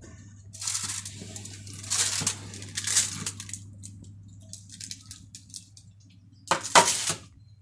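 A metal baking tray lined with parchment paper being slid out of an oven, the paper rustling and the tray scraping on the oven rack, then a loud double clatter near the end as the tray is set down on the gas hob, over a steady low hum.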